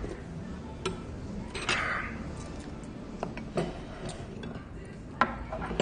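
A spoon clicking against a stainless-steel soup bowl a few separate times, amid eating sounds.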